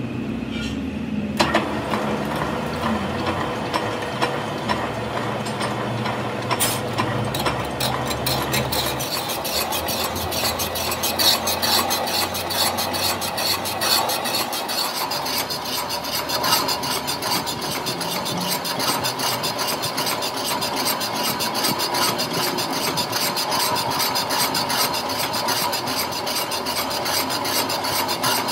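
Boring bar cutting the weld-built-up bearing bore of a differential housing back to bearing size: a steady metal-scraping cut with a ringing whine and rapid ticking, starting about a second and a half in. A low motor hum runs under it for the first few seconds and fades out about nine seconds in.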